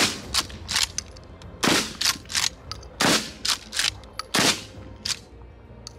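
Winchester SXP pump-action shotgun fired four times, about a second and a half apart. The slide is racked between shots, giving quick clacks after each blast.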